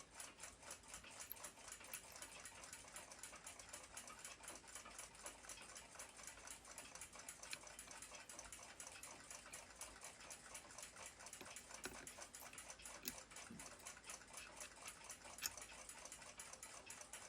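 Faint, steady ticking of a clock, with a few light clicks of small tools on a clock movement.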